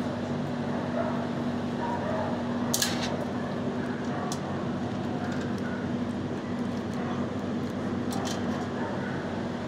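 Steady mechanical hum, like a building's ventilation, with a few sharp clicks about three seconds in and again near the end, where a German shepherd paws and noses at the steel kennel bars.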